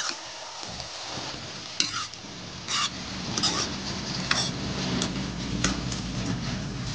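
A steel ladle scraping and clinking against a metal kadhai, about six strokes, as spinach and potatoes are stirred over a steady sizzle. A steel lid is set on the pan near the end.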